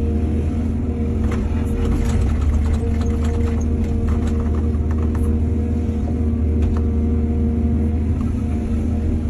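Heavy diesel engine of an excavator running steadily at working speed, with a scatter of short knocks and clatter through the middle of the stretch.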